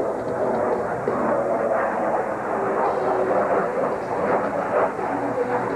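F-16 Fighting Falcon jet flying overhead, its engine heard as a steady, dense rushing noise.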